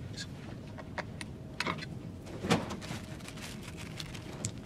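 Scattered light clicks and knocks of hand tools being handled and set down on a workbench, the loudest knock about two and a half seconds in.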